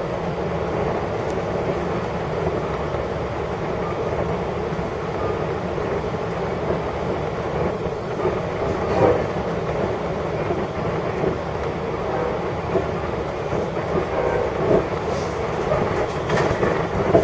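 Long Island Rail Road passenger train running at speed, heard from on board: a steady rumble of wheels on the track, with a few brief louder thumps about halfway through and near the end.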